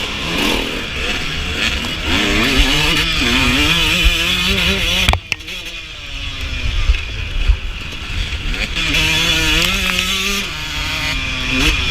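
Suzuki RM125 two-stroke dirt bike engine revving up and down under changing throttle while riding. About five seconds in there is a sharp knock and the engine drops off throttle, then it revs up again a few seconds later.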